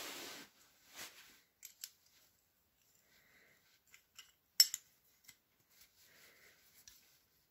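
Small metal clicks and scrapes as a steel door hinge is handled and an engine valve stem is slid through its knuckle as a hinge pin. A brief scrape at the start, then scattered light clicks, the loudest a sharp metallic click a little past halfway.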